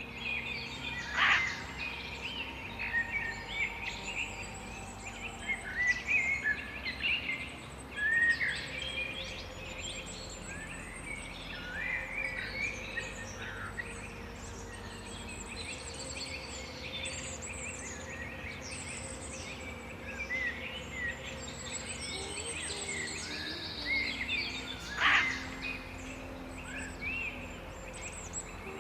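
A forest chorus of many songbirds chirping and trilling, with two louder, sharper calls, one about a second in and one near the end.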